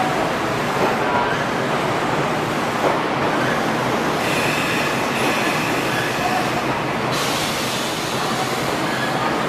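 Odakyu Romancecar express train running along an underground station platform: a steady rumble of wheels and motors, with a faint high squeal from the wheels from about four to seven seconds in.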